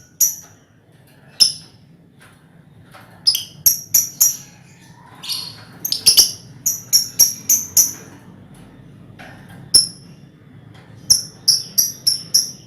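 A colony of lovebirds calling: sharp, shrill chirps, some single and some in quick runs of four to six, over a low steady hiss.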